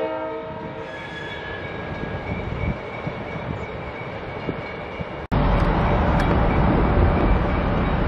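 Baldwin S12 diesel switcher locomotive running as it rolls along. About five seconds in, the sound cuts off abruptly and comes back as a louder, closer diesel rumble.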